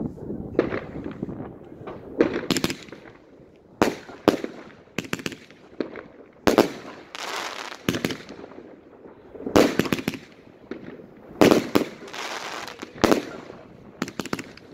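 Consumer fireworks battery firing in the night sky: sharp bangs every second or two, some in quick pairs. Each bang is followed by a short crackling hiss as the shells burst into crackling stars.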